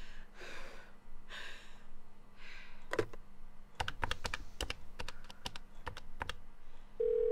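Buttons and handset of a push-button desk telephone clicking in a quick, uneven run as a number is keyed in, then a steady dial tone from the handset starts near the end.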